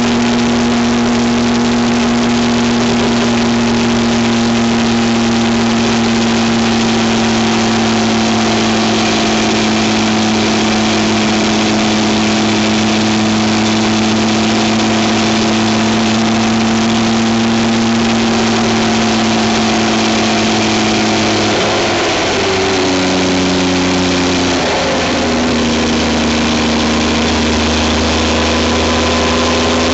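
A vehicle engine running steadily under road noise while driving. The engine note falls twice about two-thirds of the way through, then slowly rises again.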